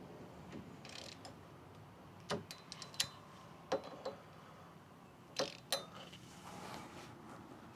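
Hand tools and metal hardware clinking: a handful of sharp, scattered clicks and knocks as a bolt is fitted on a motorcycle brake arm.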